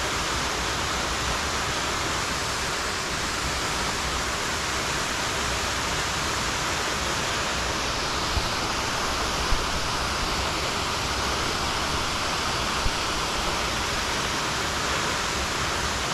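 Waterfall rushing: a steady, even hiss of falling water that holds at one level throughout.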